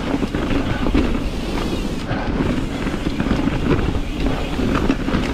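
Wind rushing over the microphone as a Ripmo V2 mountain bike rolls along a dirt singletrack, with tyre noise and many small clicks and rattles from the bike over the bumps.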